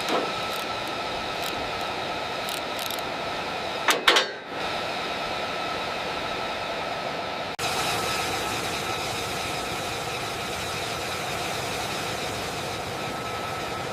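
Steady engine noise with a high, even whine. There is a brief loud burst about four seconds in and an abrupt change about halfway through.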